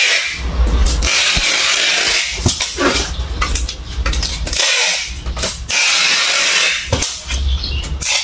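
Packing tape unrolling from a handheld tape dispenser as it is drawn across a cardboard box, in about four long noisy strips with short breaks between them.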